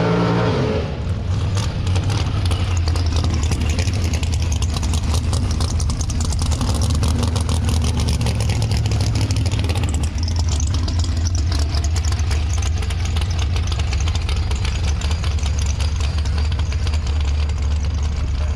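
A drag-race car's engine at high revs fades away about a second in, then another drag car's engine idles loudly and roughly, with a fast, choppy pulse, as it rolls up toward the starting line.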